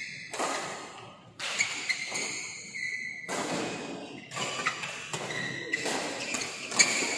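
Badminton being played on an indoor court: a string of sharp racket strikes on the shuttlecock, the loudest near the end, with shoes squeaking on the court floor between them, echoing in a large hall.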